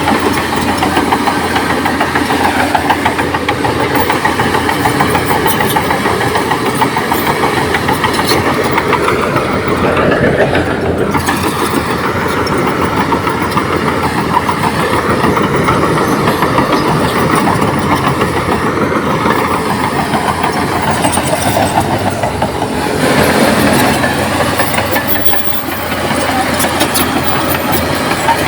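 Komatsu D58P crawler bulldozer's diesel engine running steadily, swelling briefly louder near the end.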